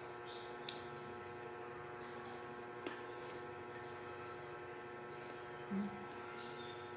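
Steady electrical hum, a constant drone with a few faint clicks. A brief low sound comes about six seconds in.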